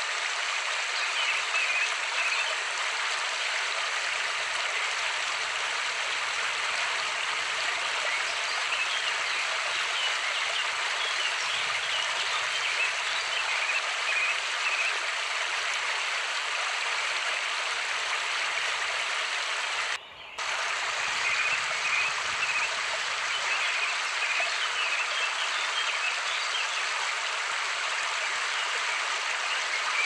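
Steady rush of running water, with faint high chirps now and then. The sound cuts out for a moment about twenty seconds in.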